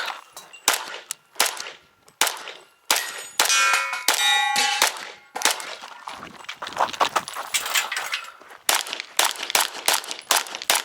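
A string of 9mm pistol shots from a Canik Rival, fired at irregular intervals, with steel targets clanging and ringing with a clear metallic tone when hit, the ringing strongest around the middle.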